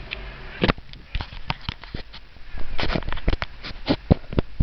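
Handling noise of a camera being gripped and fumbled: a dozen or so irregular knocks and clicks of a hand on the camera body close to the microphone.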